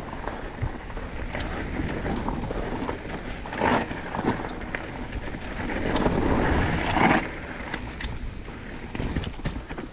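Mountain bike descending a dirt trail: tyres rolling over rough ground, with the chain and frame rattling in sharp clicks and knocks under wind rush on the microphone. A louder rush about six to seven seconds in.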